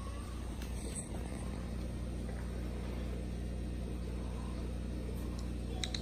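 A steady low background hum, with a quick run of light clicks near the end.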